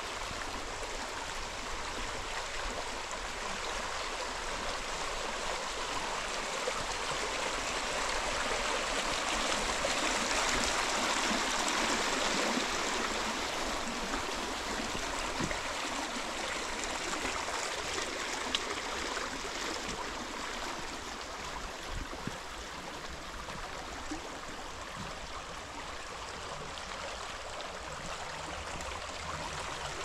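Muddy water flowing steadily along an irrigation ditch, a little louder about a third of the way in.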